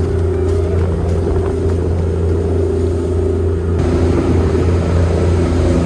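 Passenger boat's engines droning steadily while underway. A hiss above the drone thins out about two-thirds of the way through.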